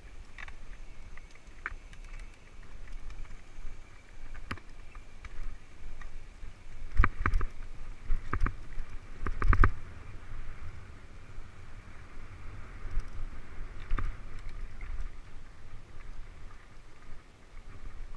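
Mountain bike rolling down a rocky dirt singletrack, heard from on the bike: tyre and trail noise over a low rumble, with sharp knocks and rattles as it hits rocks, loudest about seven and nine and a half seconds in.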